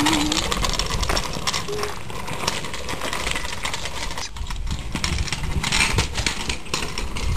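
Wind rumbling on a handheld camera's microphone, with scattered clicks and scuffs.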